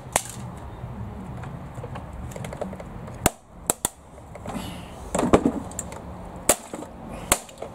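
The plastic housing of an air fryer cracking and snapping as it is levered and pulled apart by hand. There are several sharp cracks, spread out with a small cluster about five seconds in.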